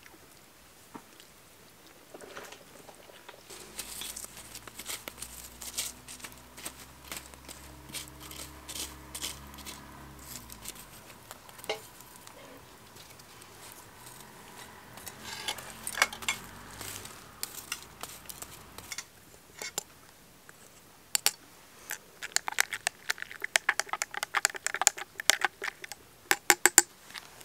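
Crackling and sharp pops from a copper cezve of Turkish coffee heating in wood-fire embers. The pops grow denser and louder in the last few seconds as the coffee starts to foam.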